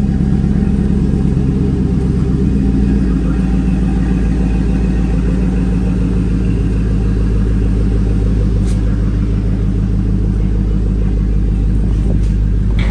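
GMC Sierra crew cab's engine idling steadily through a newly fitted FlowMaster 40 series two-chamber muffler and dual tips, a deep, even exhaust rumble now muffled rather than straight-piped.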